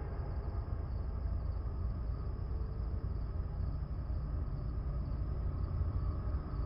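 Steady low rumble with crickets chirping in a thin, even high band.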